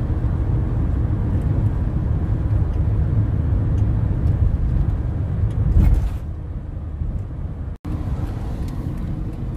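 Steady engine and road rumble inside a van's cabin while driving. The sound drops out for an instant near the end, at a cut, and comes back a little quieter.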